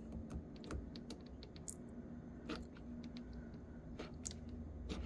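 Scattered light clicks and taps from a hot glue gun being worked at a cabinet door hinge, a few irregular ticks over a faint steady hum.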